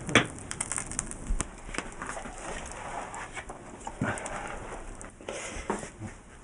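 Several sharp knocks, hard material struck together, in the first two seconds, then wind gusting over the microphone with a few fainter taps.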